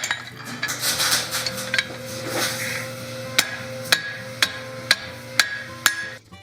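Hammer blows on a hot steel bar being forged into a cross, each with a short metallic ring; in the second half they fall evenly, about two a second.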